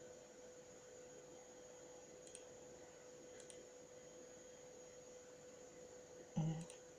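Faint room tone with a steady electrical-sounding hum, and two small clicks about two and three seconds in. A short, louder low sound comes just before the end.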